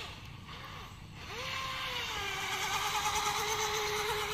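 Electric RC speed boat with a Racerstar brushless motor on a 3S battery: a couple of short throttle blips, then from about a second in a steady high motor whine with hissing spray. The whine sags slightly in pitch and cuts off abruptly when the throttle is released.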